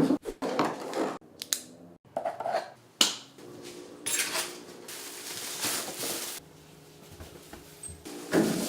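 Kitchen handling sounds: utensils and dishes clinking and knocking, with short scrapes at uneven intervals and one sharper strike about three seconds in.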